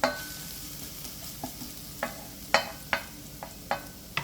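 Chopped garlic sizzling in hot olive oil in a pan, while a utensil stirs it, knocking against the pan about seven times in the second half.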